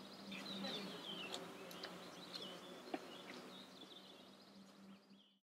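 Outdoor ambience of small birds chirping over a steady low hum, fading down and cutting to silence about five seconds in.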